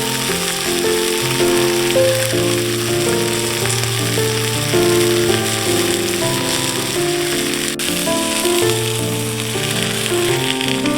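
Background music, a melody of changing notes, over a steady sizzling hiss of food frying.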